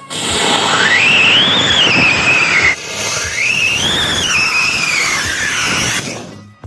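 Firework on the back of a toy car spraying a jet of sparks: a loud rushing hiss with a whistling tone that rises and falls, in two long stretches with a short break near three seconds, dying away just before the end.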